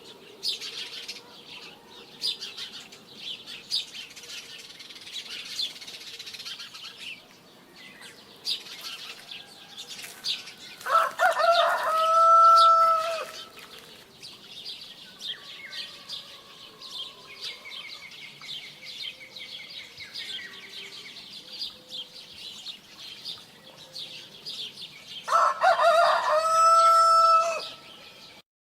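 A rooster crowing twice, about eleven seconds in and again near the end, each crow a loud pitched call held for a couple of seconds and falling away at the end. Small birds chirp busily throughout.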